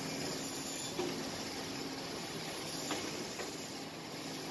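Mainali RB-1 automatic band saw for frozen meat running: a steady hiss over a low hum, with a few light knocks about one and three seconds in.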